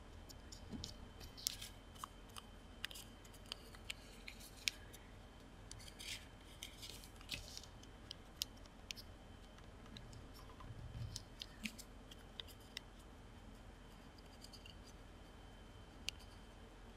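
Origami paper being folded and creased by hand: faint, scattered crinkles and crisp ticks of the paper, coming thickly in short runs through the first two-thirds, with a single tick near the end.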